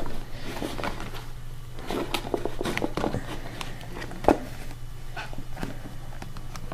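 Plastic food-storage container lids being pressed shut and the containers handled on a wooden table: scattered light clicks and knocks, with one louder knock about four seconds in.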